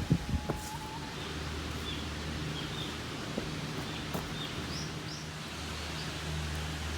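Outdoor ambience: small birds chirping now and then in short high calls over a steady low hum, with a few light knocks right at the start.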